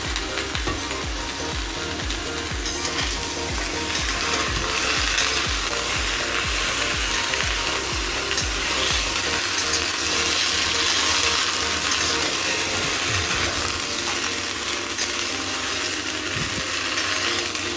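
Luffa gourd pieces sizzling in hot oil in a steel kadai while a metal spatula scrapes and stirs them against the pan, with regular stirring strokes about twice a second through the first half.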